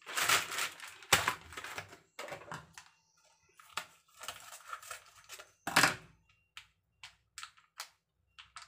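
A plastic food packet crinkling and tearing as it is handled and opened, in rustling bursts, with a string of short crackles near the end.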